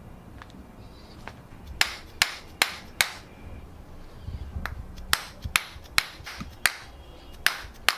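A series of sharp knocks, eleven in all, in two quick runs. The first run has four knocks, each about 0.4 s apart. The second has seven, each half a second or so apart. Each knock has a brief ring after it.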